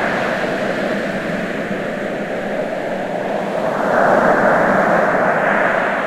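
Ocean surf washing in a steady rush, with a wave swelling louder about four seconds in and then easing off.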